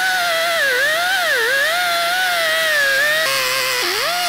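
Air-powered cut-off tool with a small cutting disc whining as it cuts through the plastic honeycomb of a bumper insert. Its pitch keeps sagging and recovering as the disc bogs into the plastic, with a deep dip near the end.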